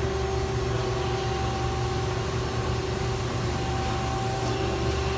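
Twin-turret CNC turn-mill lathe running in the middle of a machining cycle: a steady machine hum with a constant whine.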